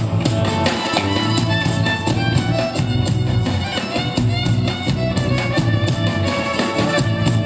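Live band playing an instrumental interlude between sung verses, with acoustic guitar and electric bass keeping a steady rhythm under a melody line.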